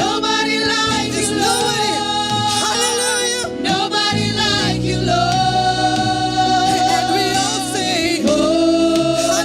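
Gospel worship singing with instrumental backing, the voices holding long sustained notes.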